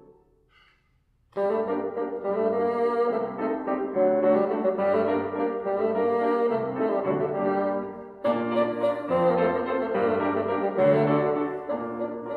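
Bassoon and grand piano playing a classical duet. The piano's last notes fade to a brief near-silence, then about a second and a half in the bassoon enters with the melody over piano accompaniment. A short dip comes about eight seconds in before the next phrase starts.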